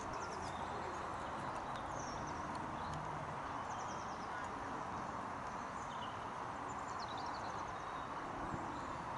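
Steady outdoor background noise with a few faint, high bird chirps scattered through it.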